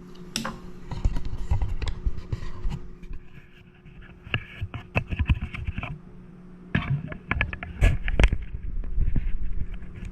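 Handling noise from work at a bench: irregular clicks and knocks with scraping and low rumbles, over a steady electrical hum.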